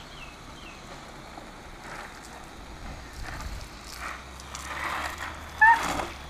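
Garden hose spray nozzle hissing steadily as water jets out. A brief high, rising squeal comes about five and a half seconds in.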